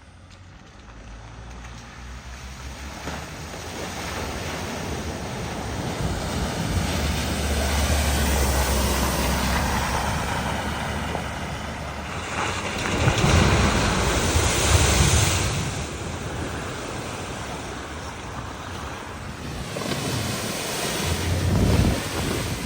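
Floodwater rushing and splashing as vehicles drive through a flooded ford, with a low engine rumble beneath and wind on the microphone. The splashing swells loudest about two-thirds of the way in and again near the end.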